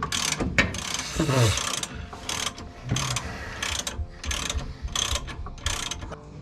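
Hand ratchet wrench clicking in repeated strokes, about two a second, loosening the bolts that hold a cut crossmember to the transmission mount.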